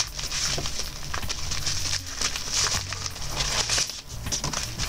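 Padded paper mailer envelope being handled and opened, with irregular crackling and rustling of the paper.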